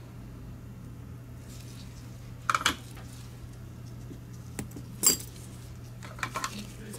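Metal hand tools clinking: a steel locking hemostat and tweezers handled and set down on the workbench mat during soldering. There is a sharp double clink about two and a half seconds in, the loudest clink about five seconds in, and a few small ticks near the end, over a low steady hum.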